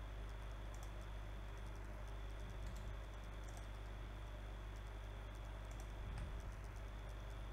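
A few faint clicks of a computer mouse over a steady low hum.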